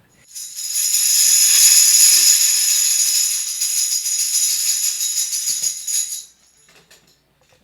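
Tambourine shaken continuously, its metal jingles ringing steadily, stopping about six seconds in.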